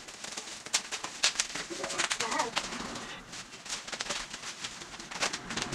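Bubble-wrap plastic being gripped and pulled off a box, crinkling and crackling in quick, irregular snaps.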